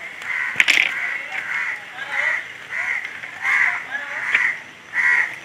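Crows cawing over and over, about eight short caws in a row, with two sharp clicks, one about half a second in and one about four seconds in.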